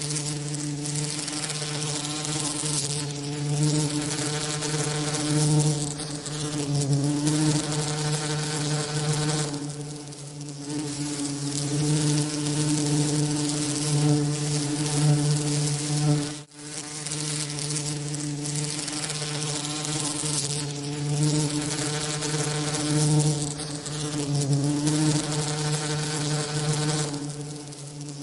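Bee wing-beat buzzing mixed with hiss as a tinnitus masking sound: a steady low buzz with a stack of overtones over an even hiss. It swells and eases slightly and cuts out for an instant about 16 seconds in.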